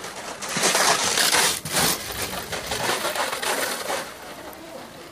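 Natural track luge sled passing close on an icy track: its steel runners scraping and rattling on the ice, loudest over the first two seconds and then fading as it moves away.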